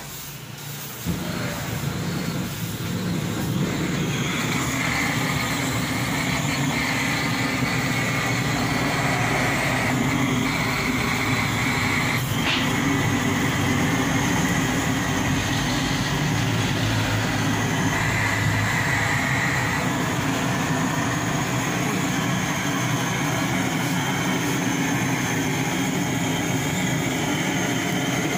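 Blowtorch running with a steady roar as it is played over a slaughtered goat carcass to singe off the hair. It comes up about a second in and holds without a break.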